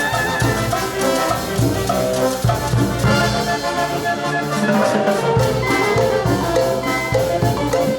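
Peruvian brass band playing an instrumental cumbia passage: brass carrying the melody in held notes over a steady drum beat. The low bass drops out for about a second midway, then returns.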